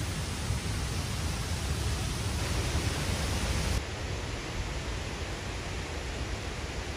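Steady rush of Canim Falls and the Canim River, an even hiss of falling water that dips a little about four seconds in.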